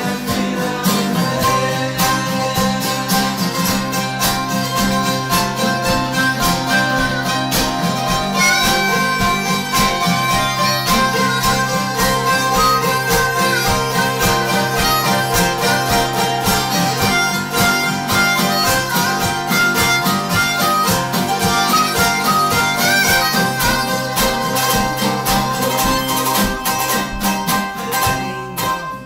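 Acoustic jam: a harmonica plays a lead melody over strummed guitars and a mandolin-type instrument, with a steady beat. The playing drops away just before the end.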